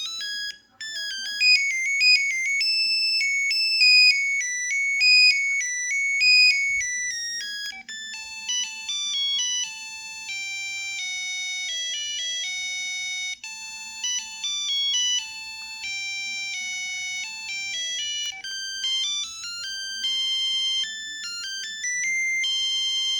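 LG Cyon mobile phone playing a polyphonic ringtone: a bright electronic melody of short, high synthesized notes from the handset's small speaker. There is a brief gap under a second in, and lower notes join the tune from about a third of the way through.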